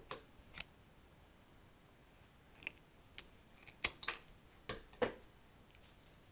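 Scissors snipping at a rose stem and its leaves: a run of about eight short, sharp snips, the loudest just before four seconds in.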